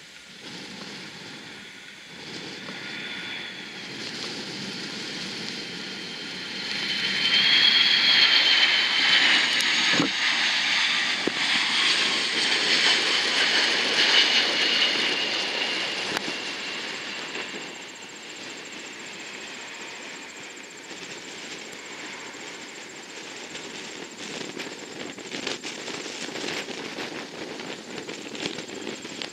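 Boeing E-6B Mercury's four CFM56 turbofans on landing approach, a jet whine that swells loud about a quarter of the way in as the aircraft passes close, then fades. Gusty wind buffets the microphone near the end.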